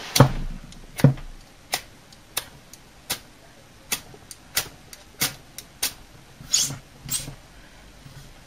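Ferrocerium rod struck repeatedly with a stainless steel washer: about a dozen short, sharp scrapes, roughly one every two-thirds of a second, each throwing a shower of sparks.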